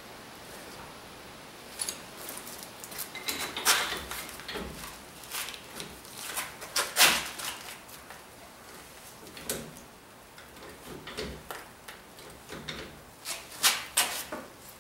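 Scattered metallic clicks and clunks of hand tools worked around a hydraulic puller clamped on a car's rear wheel hub flange, the loudest knock about halfway through and a quick run of clanks near the end.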